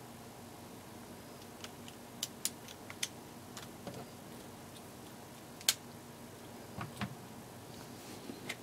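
Light clicks and taps of clear acrylic pieces knocking together as they are slotted into place, scattered and irregular, with one sharper click a little past halfway and a couple of duller knocks soon after.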